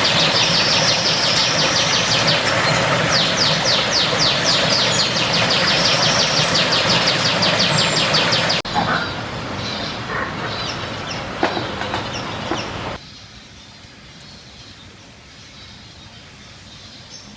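Aviary birds calling: fast runs of repeated high chirps over a loud, steady rushing background. Partway through the sound drops abruptly to quieter scattered chirps, then drops again to a faint background.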